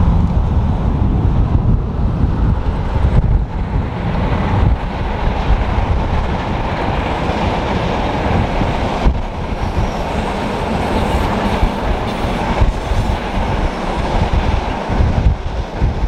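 Passenger train hauled by a Siemens Vectron electric locomotive passing close by at speed: a steady rumble of wheels on rail with some clatter and a few sharper knocks as the coaches roll past.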